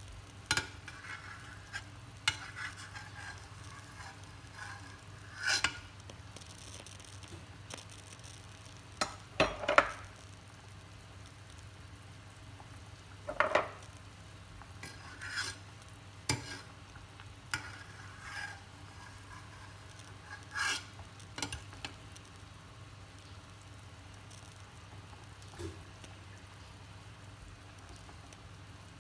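Pot of meatball soup boiling: bubbling with irregular short pops and spatters, over a low steady hum.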